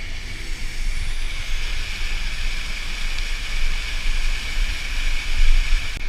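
Steady rush of a mountain waterfall's white water, with an uneven low rumble of wind buffeting the microphone.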